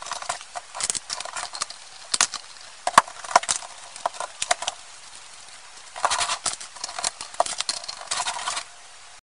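Plastic Lego bricks clicking and clattering as they are handled and pressed onto a brick-built model, in quick irregular clusters with a short lull in the middle; the clicking stops shortly before the end.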